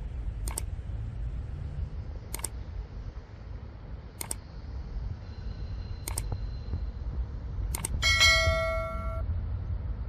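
Subscribe-button animation sound effects: five quick mouse-style double clicks about two seconds apart, then a bright notification bell ding about eight seconds in that rings for about a second and is the loudest sound. Under them runs a steady low rumble.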